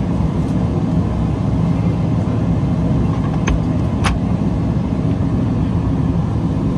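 Cabin noise of a Boeing 777-300ER taxiing: the GE90 engines at idle and the rolling gear make a steady low rumble, heard from inside over the wing. A couple of faint clicks come a little past halfway.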